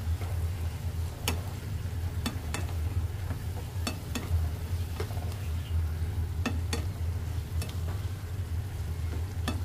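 Spatula stirring and turning sliced vegetables and chicken in a nonstick frying pan, with irregular clicks and taps of the spatula against the pan over a faint sizzle and a steady low hum.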